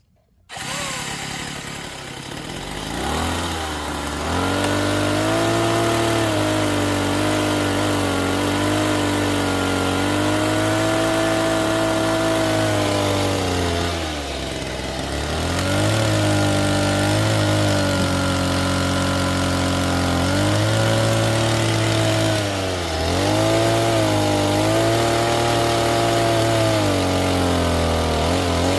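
Homemade RC excavator's power unit running steadily as the machine digs and loads soil. Its pitch sags briefly and recovers a few times under load. The sound starts abruptly about half a second in.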